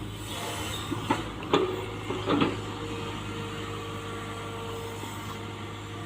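Hitachi Zaxis 120 excavator running with a steady engine hum, and a few sharp metallic clanks and creaks between about one and two and a half seconds in.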